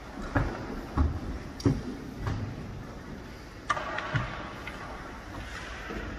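Goalie pads and sticks knocking and thumping on the ice of an indoor rink, four knocks in the first two seconds, then a short skate-blade scrape on the ice about four seconds in.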